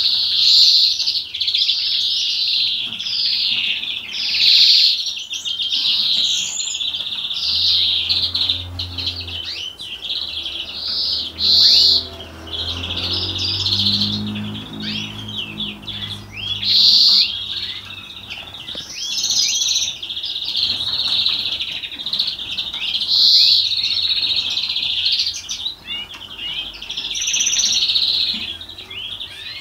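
European greenfinch singing a long, unbroken song of twittering trills and quick rising notes, with louder phrases every few seconds.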